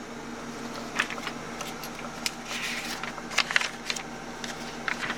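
Scattered light clicks and rattles of small metal parts being handled, a few per second at most, over a steady low hum.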